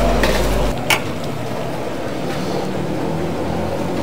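Steady rushing kitchen noise, with two sharp knocks, one at the start and one about a second in, and a low hum that cuts off under a second in.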